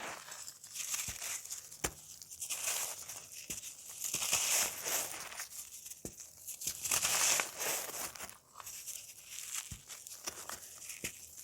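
Dry, crunchy cake crumbling between fingers: irregular crackling and crunching with sharp snaps, coming in waves.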